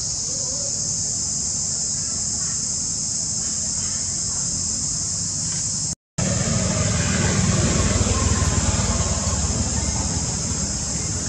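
Steady, high-pitched chorus of insects, with a low outdoor rumble beneath it; the sound drops out for an instant about six seconds in and the rumble is louder after that.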